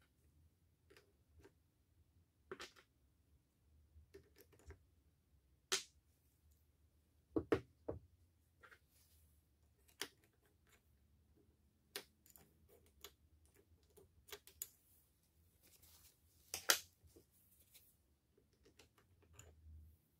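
Irregular light clicks and taps of small hard parts being handled on a workbench, with a few sharper knocks, the loudest near the end.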